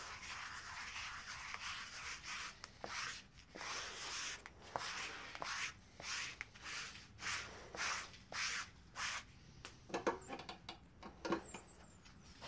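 A hand-held pad rubbed back and forth over a screen-printing press platen, in quick strokes about two a second that stop about nine seconds in, followed by a few sharp knocks.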